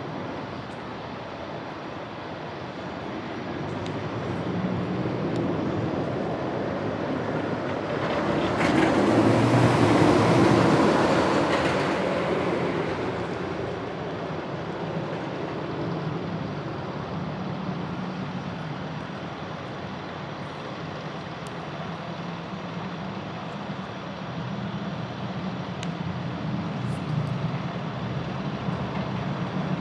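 Rocky Mountain Construction roller coaster train on a test run, its rushing rumble on the track swelling loudest as it passes close about eight to thirteen seconds in, then easing back to a steady rumble.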